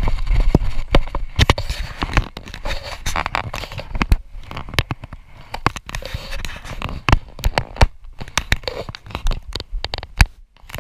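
Close-up handling noise from a body-worn camera and the clothing around it: irregular clicks, crackles and rustling, loudest in the first second or two.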